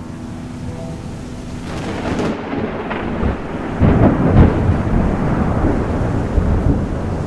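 Thunder rumbling over steady rain, swelling to a loud peak about four seconds in and then easing.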